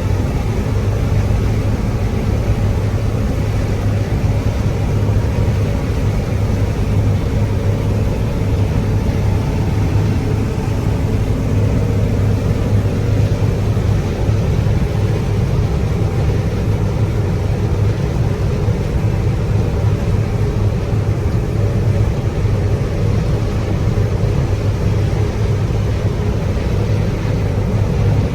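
John Deere 9760 STS combine running steadily at working speed while harvesting corn: a constant low engine and machinery drone with a strong low hum.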